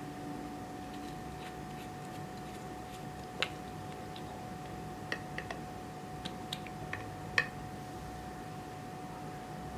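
Clear slime being worked by hand, giving a scattered handful of sharp little clicks and pops, most of them bunched together in the second half, over a steady background hum.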